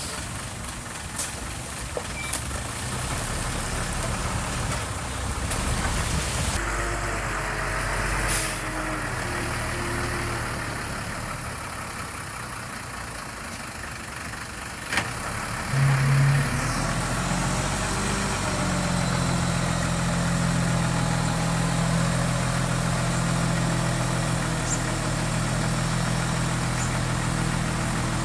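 Diesel engine of heavy earthmoving machinery running throughout. About 16 seconds in the level jumps briefly, then settles into a louder, steady engine tone.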